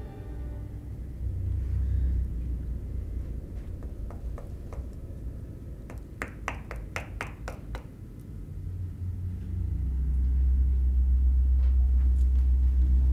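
Knuckles knocking on a hard surface: a few faint taps about four seconds in, then a quick run of about eight sharper knocks lasting about a second and a half, over a deep drone of horror-film sound design that swells again about nine seconds in and holds.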